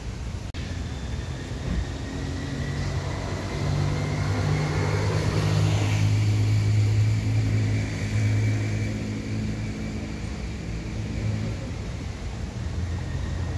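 A motor vehicle engine running, growing louder a few seconds in and dying away near the end, with a thin whine above it.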